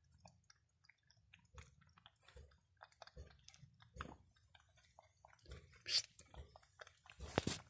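Two cats eating wet food from a plastic tray: irregular chewing clicks and wet smacks, with louder bursts about six seconds in and near the end.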